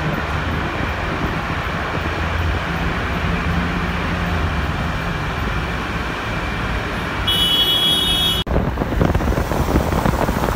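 Steady road and engine rumble heard from inside a car driving through a road tunnel. A brief high-pitched tone sounds just before a sudden cut, after which wind-buffeted traffic noise takes over.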